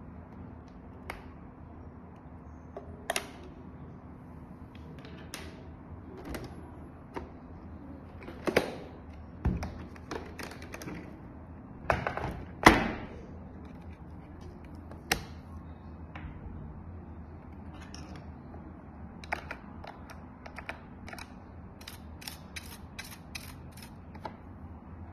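Plastic clicks, knocks and scrapes from a yeedi vac 2 pro robot vacuum being handled as its side brush is removed for cleaning, scattered with pauses between and the loudest knock about halfway through. Near the end comes a quick run of light ticks as a small cleaning brush is worked around the side-brush shaft.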